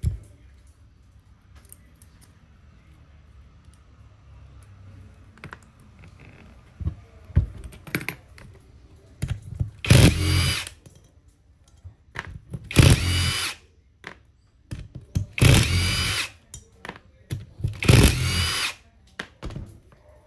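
Cordless drill whirring in four short bursts of about a second each, spaced roughly three seconds apart in the second half, turning the screws in the brass valve head of a Kärcher HD 585 pressure-washer pump. Light clicks and clinks of metal parts being handled come before and between the bursts.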